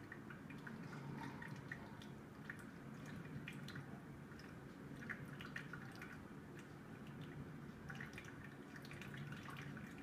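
Water dripping and trickling through a water flow sensor and its tube, as faint irregular drips several times a second over a low hum; the water is still passing through the sensor.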